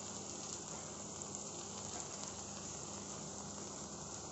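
Chicken pieces frying in butter in a pan over a low flame: a steady, quiet sizzle.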